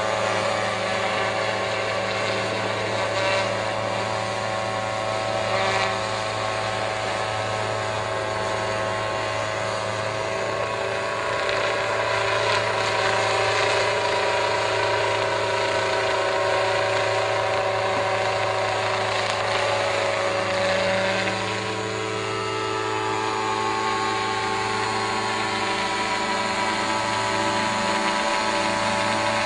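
Small unmanned crop-spraying helicopter flying low overhead, its engine and rotor making a steady, high-pitched mechanical drone. The pitch and level dip briefly about two-thirds of the way through, then recover.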